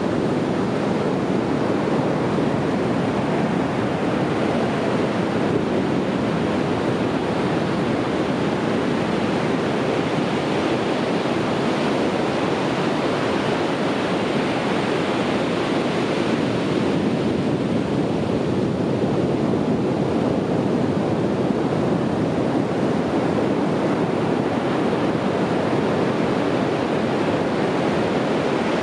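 Sea waves breaking on a beach: a steady surf wash with gentle swells in level.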